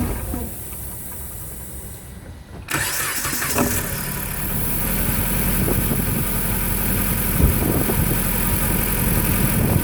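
2008 Dodge Caliber's four-cylinder engine goes quiet briefly, is restarted about two and a half seconds in, and settles into a rough, shaky idle. The roughness is a misfire that new spark plugs have not cured; the owner suspects the ignition coils.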